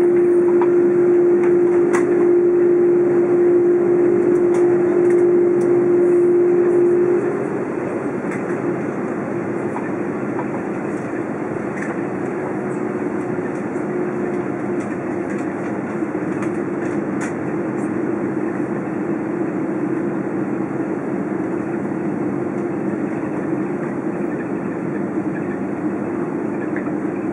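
Cabin noise inside an Airbus A330 airliner taxiing after landing: a steady rumble of engines and airflow. A strong steady hum stops about seven seconds in, and the cabin noise is a little quieter after it.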